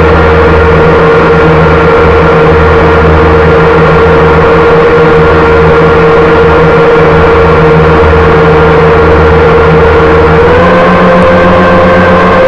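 Small camera drone's propellers and motors whining steadily, heard loud and close on the drone's own microphone. The pitch steps up slightly about ten seconds in as the motors speed up.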